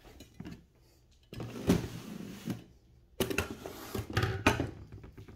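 Handling noise: rustling with a few light knocks and clicks as the phone and trumpets are moved about on a table.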